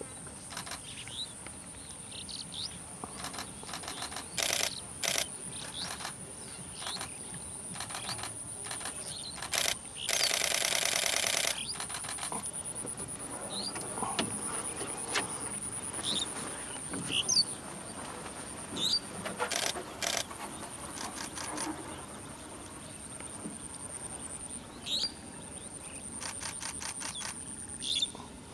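Open-field ambience: a steady high insect whine with scattered short bird chirps and occasional clicks. A loud rattling buzz lasts about a second and a half, about ten seconds in.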